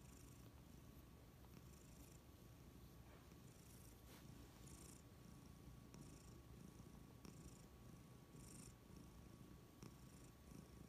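A tabby-and-white domestic cat purring faintly, a soft, steady low rumble with a light hiss recurring every second or so; the purr of a relaxed, contented cat.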